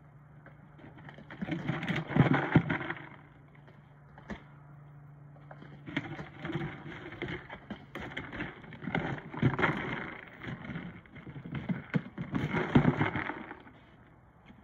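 A husky shoving and pawing at a long cardboard box with kibble inside, dragging it across a concrete patio: cardboard scraping, rustling and knocking in bursts, loudest about two seconds in and again near the end.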